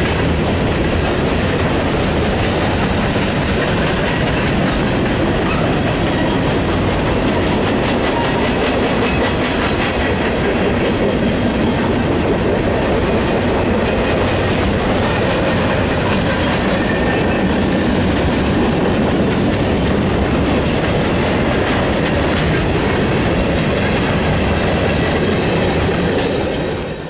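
Freight train of covered hopper cars rolling past at close range, a loud, steady rumble and clatter of steel wheels on the rails. The noise drops away suddenly near the end as the last car passes.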